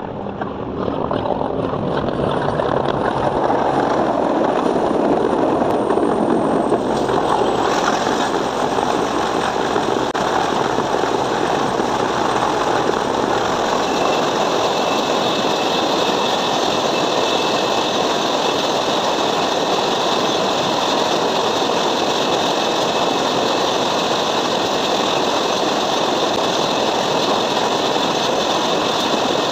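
Twin-turbine offshore helicopter coming in to land on a platform helideck, then sitting on deck with its rotors turning and engines running. Loud and steady after building up over the first couple of seconds, with a high whine that fades out partway through.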